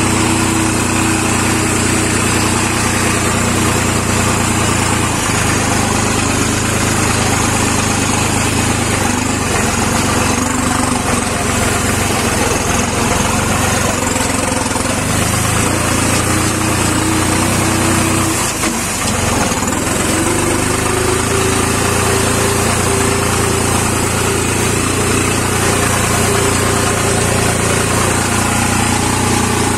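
Tractor's diesel engine running steadily under load as the tractor is driven across a harvested paddy field, heard from the driver's seat. Its note shifts a little midway and dips briefly about two-thirds of the way through.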